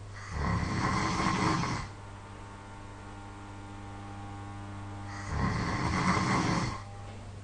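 A person snoring in sleep: two loud snores, each about a second and a half long and some five seconds apart, over a steady low hum.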